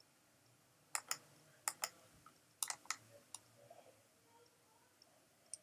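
A handful of sharp clicks from operating a computer, several coming in quick pairs about a second in and in the middle, with one more near the end.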